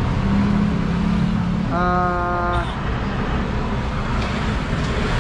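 Road traffic rumbling steadily as a vehicle engine runs past, with a horn sounding once for about a second, about two seconds in.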